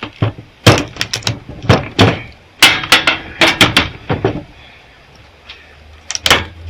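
Irregular sharp knocks and scrapes of a tool working on a welder's transformer, chipping hardened resin off the copper windings. A low steady hum comes in near the end.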